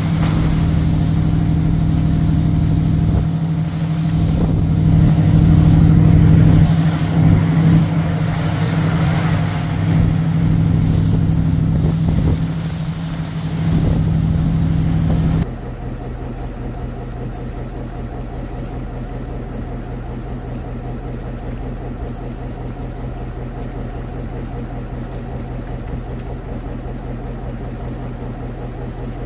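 Fishing boat's engine running steadily under way, with wind noise over it. About halfway through, the sound drops abruptly to a quieter, lower, steady engine hum.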